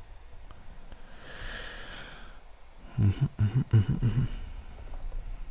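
A breath out through the nose, then, about three seconds in, a quick run of taps and knocks from typing on a computer keyboard, the loudest part.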